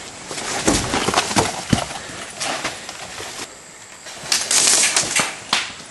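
A player moving over leaf litter and debris, with a few crunching footsteps and gear rustling, then a louder brushing rustle about four and a half seconds in.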